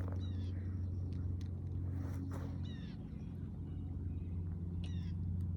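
A bird calling in short, high chirps three times, over a steady low hum.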